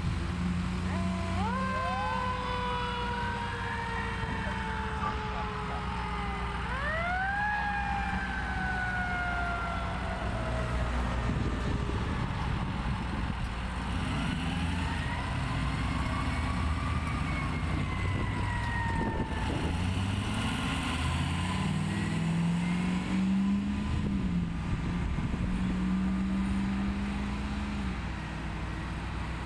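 Emergency vehicle sirens on a fire engine and an ambulance wailing as they pull away, several overlapping tones sweeping up and down in pitch, with a lower gliding tone in the second half. Heavy vehicle engines run underneath throughout.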